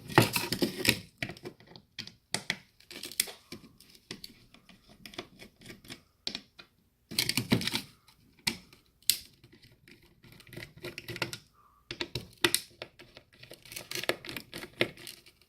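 Screwdriver backing small screws out of a wireless access point's plastic housing: scattered clicks and scratching, with louder bursts of clatter at the start, about halfway and near the end.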